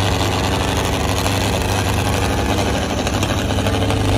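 Two farm tractors' diesel engines running hard under load in a tug-of-war pull, a steady, loud, deep drone.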